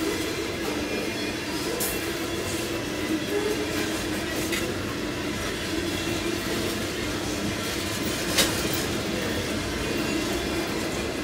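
CSX freight train's container well cars rolling steadily past, the wheels on the rails making a continuous rumble and hum with a few clicks. The sharpest click comes about eight seconds in.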